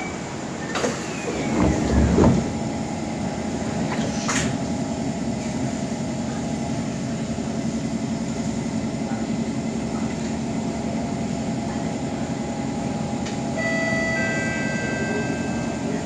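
Kawasaki C151 metro train: its doors slide shut with a click and a heavy thud about two seconds in, then a steady hum from the stationary car. Near the end several steady high whining tones come in as the train's traction motors start.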